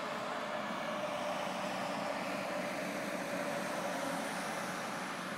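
Red electric locomotive hauling a train, approaching slowly: a steady running noise with a few faint humming tones, and a faint high whine that rises about four seconds in.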